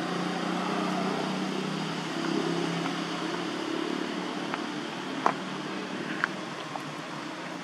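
Steady outdoor background noise with a low hum that fades out about halfway through, and two sharp clicks about five and six seconds in.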